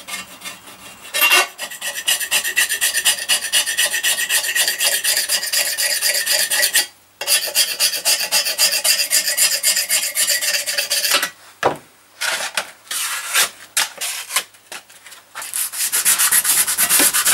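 Hand sanding of a pillar drill's painted metal belt cowling with abrasive paper: fast back-and-forth rubbing strokes. They run in two long stretches with a brief break near the middle, then come in short bursts with gaps, and run steadily again near the end. The old paint is being scuffed to give a key for primer.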